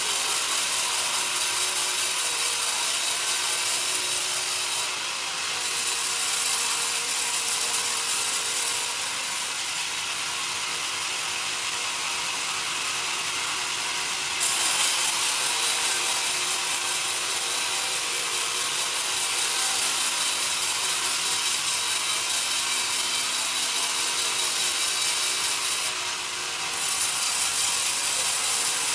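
Band saw blade cutting lengthwise through a young pine board: a steady high-pitched hiss of the teeth in the wood. It drops briefly about five seconds in and again near the end, and runs lower for a stretch in the middle before rising sharply again.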